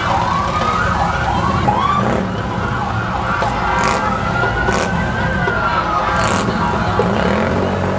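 Emergency vehicle siren sounding over a steady low rumble. It gives a few quick up-and-down yelps in the first two seconds, then one long wail that rises and falls.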